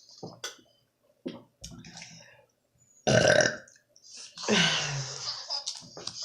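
A person burps twice: a short burp about three seconds in, then a longer one that drops in pitch. Before them come a few short wet mouth clicks from chewing.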